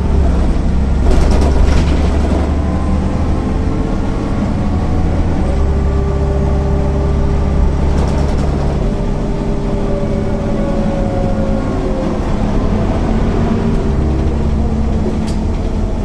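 MAN NL 262 city bus under way: its six-cylinder diesel runs with a strong low rumble and slowly drifting whining tones from the drivetrain, including the ZF 5 HP 600 automatic gearbox. A few short rattles come about a second in and again about halfway.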